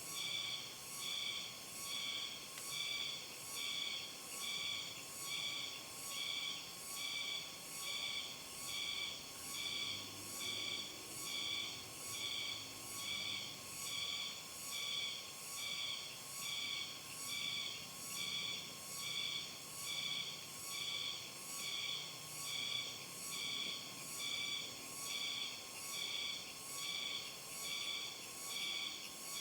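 Insects calling in a steady chorus that pulses about once a second, in high, shrill notes.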